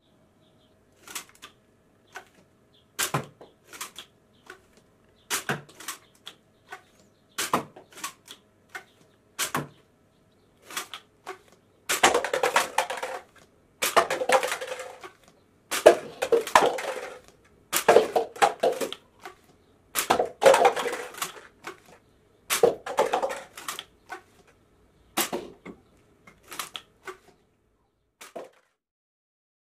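Objects being handled: sharp clicks and knocks one to two seconds apart, with a run of longer, louder noisy bursts in the middle, then a few more clicks.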